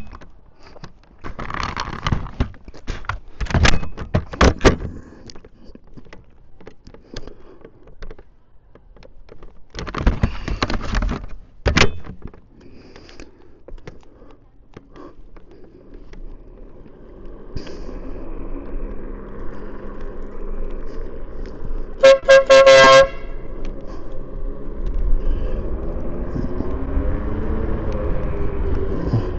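Twin electric air horns on a Yume Predator electric scooter blown in two quick back-to-back toots about 22 seconds in, the loudest sound here. Before that there are scattered clicks and knocks, then a steady rumble of wind and road noise once the scooter is moving.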